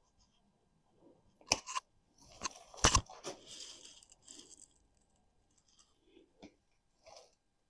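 Branch side cutters snipping through woody privet suckers: a few sharp crunching snaps, the loudest about three seconds in, followed by a rustle of twigs and leaves and a couple of small clicks near the end.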